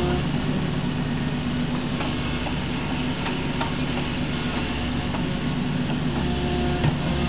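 Kubota KX61-3 mini excavator's diesel engine running steadily under load while the arm digs and swings spoil aside, with a few faint knocks.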